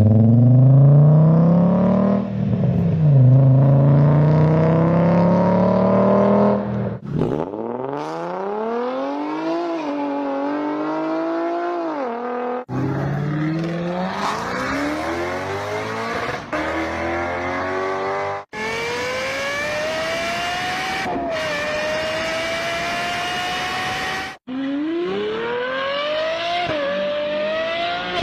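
Cars with V-engines accelerating hard, one after another in about five short spliced clips. In each clip the engine note climbs in pitch, with short dips at the gear changes, and each clip cuts off abruptly into the next.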